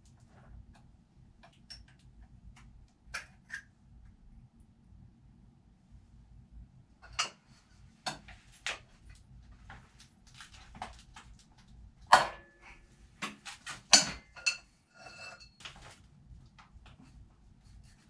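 Scattered metallic clicks and clanks of a wrench with a pipe extension being fitted and worked on the camshaft sprocket bolts of a Subaru EJ257 boxer engine, with a few louder knocks and a short metallic ring.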